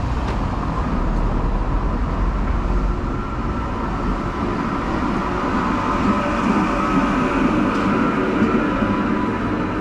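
A city tram running along street rails: a steady rumble of motor and steel wheels with a high whine over it, the rumble growing stronger in the second half.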